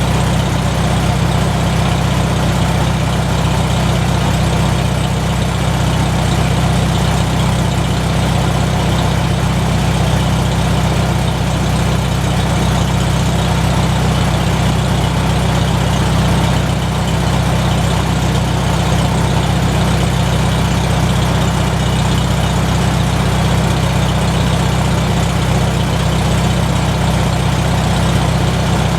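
McCormick-Deering W-4 tractor's four-cylinder engine idling at an even, unchanging speed.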